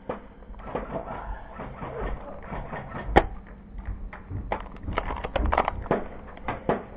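Scattered clicks and knocks of an airsoft skirmish, with one sharp crack about three seconds in and a quick run of knocks near the end.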